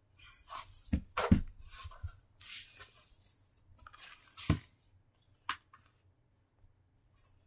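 Rustling and irregular thumps of plush stuffed toys being handled and moved about close to the microphone, with a few sharp knocks, the loudest about a second in and another at about four and a half seconds.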